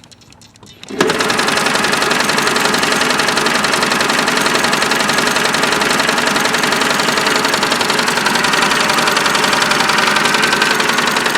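Singer Touch & Sew 750 sewing machine starting about a second in and running at a steady high speed, its motor humming and needle mechanism clattering rapidly, with a pattern cam turning.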